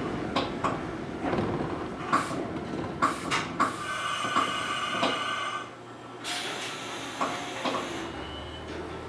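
Mizuma Railway 1000-series electric train braking to a stop. Wheels click over rail joints, then brakes squeal with a high ringing from about three and a half seconds in, cutting off as the train halts, followed by a short hiss of air.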